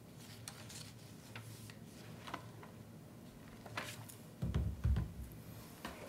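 Scattered faint clicks and taps picked up by a meeting room's microphones. About four and a half seconds in, a low, muffled bumping rumble on a microphone is the loudest sound.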